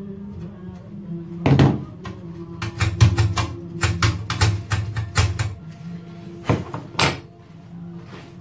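Sharp metallic clicks and knocks of pliers working on a wall clock's movement: one about a second and a half in, a quick run of them in the middle, and two more near the end as the tools are set down on the wooden bench. Quiet background music plays under them.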